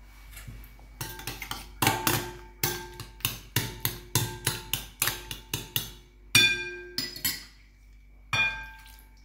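Metal spoon stirring and mashing boiled pumpkin with milk in a glass bowl, clinking against the glass about three times a second, each strike ringing briefly. A little after eight seconds, a single clink as the spoon is set down on a ceramic saucer.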